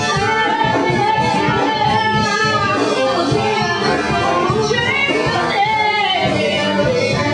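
Swing music played by a band with a horn section, full and steady in level, with melody lines weaving over the accompaniment.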